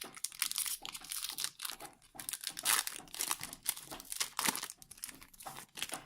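Yu-Gi-Oh Dark Saviors booster pack's foil wrapper being torn open and crinkled in irregular crackling bursts.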